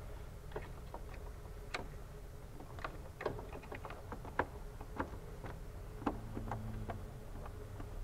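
Scattered light plastic clicks and taps from handling the headlight's dust cover and tucking the HID bulb wiring behind a Hyundai Sonata headlight housing.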